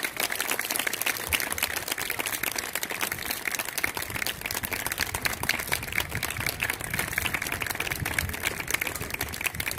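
Audience applause: many people clapping at once, a dense, even spread of hand claps.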